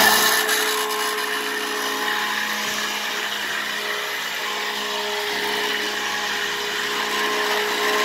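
Bella stick blender running steadily in melted oils and lye water, loud from the moment it switches on: a steady motor whine. It is emulsifying the oils and lye liquid into cold-process soap batter.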